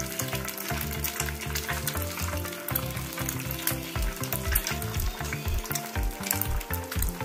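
An egg sizzling and crackling as it fries in a small aluminium frying pan, with many fine pops throughout. Background music with a low, rhythmic pulse plays underneath.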